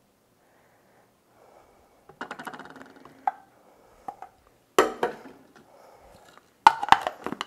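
Wooden spoon scraping the last liquid out of an enamel saucepan into a food processor bowl, with a few light knocks. About five seconds in the pot is set down on the hot plate with a knock, and near the end a run of sharp plastic clicks comes as the processor's lid is handled and fitted.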